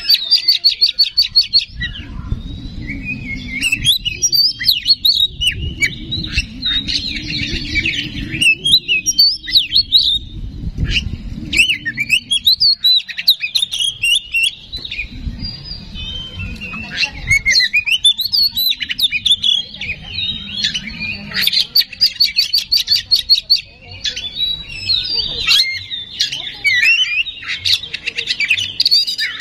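Oriental magpie-robin in full, vigorous song: varied whistled phrases with fast rattling trills just after the start, again around three quarters of the way through and near the end. A low rumble runs underneath through the first half.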